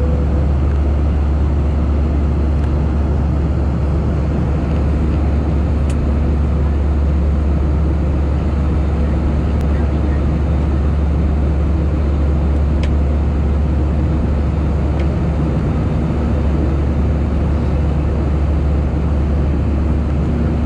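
Steady cabin noise inside an Airbus A320-214 in flight during the climb after takeoff: the constant drone of its CFM56 engines and rushing air, heaviest in the deep low end. A few faint clicks come through it.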